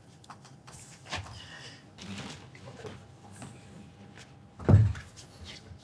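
Rustling and light knocks of bagged parts being moved about on a wooden table, then one heavy, deep thump a little over four and a half seconds in as the SolaX X1-VAST hybrid inverter is set down on the tabletop.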